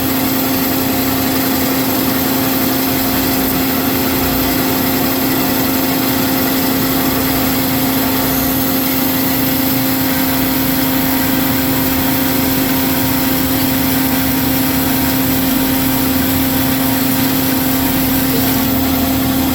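Marvel MV525 vertical bandsaw running under its hydraulic blade drive, cutting a half-inch-wall steel rectangular tube: a steady, loud machine drone with a constant hum over even cutting noise.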